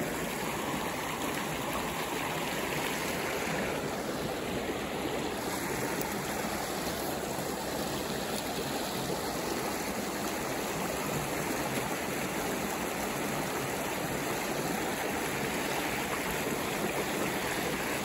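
Shallow creek water rushing over a low rock ledge into a riffle: a steady, even rush with no breaks.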